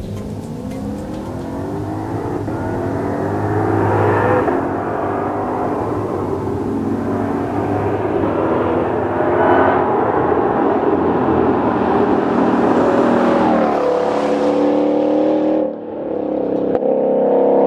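A Ford Mustang Shelby GT500's supercharged 5.2-litre V8 revving hard through its exhaust. Its pitch climbs and drops back several times.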